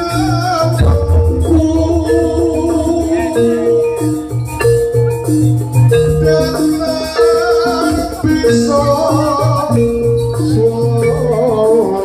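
Live Javanese jaranan gamelan music: struck metal-keyed instruments play short repeated notes over a pulsing drum pattern, with a high wavering melody line above them.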